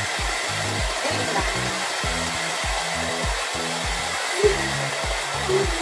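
Hand-held hair dryer blowing steadily, with a low rhythmic pulsing underneath at about four beats a second.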